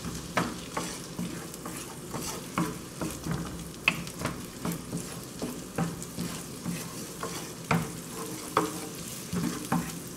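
Chopped onions sizzling in oil and butter in a frying pan, with a wooden spoon scraping and tapping the pan as they are stirred, about two strokes a second.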